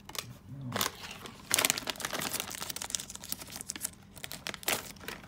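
Foil potato-chip bag and its small foil card pack crinkling and crackling as they are handled, loudest about a second and a half in.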